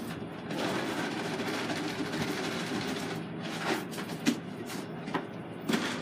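A passing vehicle's rushing noise, swelling about half a second in and fading out after about three seconds, followed by a few sharp clicks.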